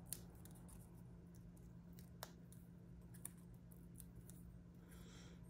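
Near silence: faint small clicks and light paper handling as foam adhesive dimensionals are stuck onto the back of a small die-cut cardstock piece, with one short soft hiss about five seconds in.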